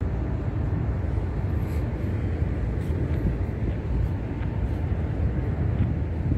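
Low, irregular rumble of wind buffeting the microphone of a hand-held phone carried on a walk.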